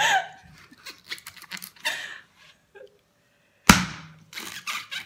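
Meat cleaver chopping into the husk of a young coconut: one loud, sharp whack a little under four seconds in, with lighter knocks and taps before and after it.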